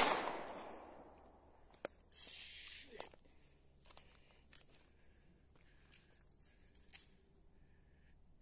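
The tail of a gunshot fired an instant before, ringing and dying away over about the first second. After that, only a few faint clicks and a short rustle about two seconds in.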